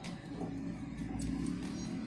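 Soft background music, with a few light clicks from a small tool working against a phone's plastic frame, one right at the start and two more about a second in.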